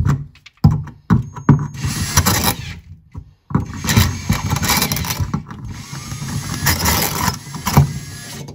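Ryobi cordless drill with a 3/8-inch bit running in short bursts, then a longer run, as it bites and grinds into the brass center piece of a cheap kitchen sink basket strainer. It briefly stops about a second in and again around three seconds in.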